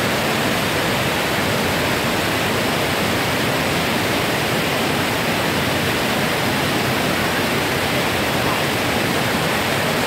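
A broad, multi-tiered waterfall cascading down rock ledges: a steady, loud rush of falling water.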